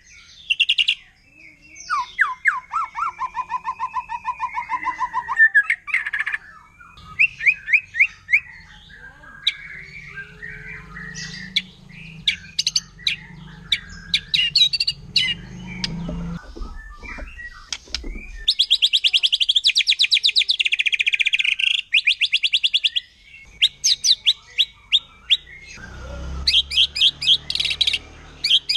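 White-rumped shama singing a loud, varied song of rapid repeated notes and trills, including fast machine-gun-like 'shooting' bursts (tembakan); one long fast rattle of notes comes about two-thirds of the way through.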